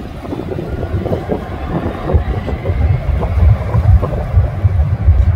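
Wind buffeting the microphone in uneven gusts that grow louder toward the end, over the distant sound of a jet airliner's engines on the runway. A faint high whine rises slowly from about two seconds in.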